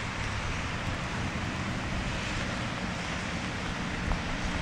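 Steady wind noise buffeting the microphone outdoors: an even rushing hiss over a fluttering low rumble, with no voices.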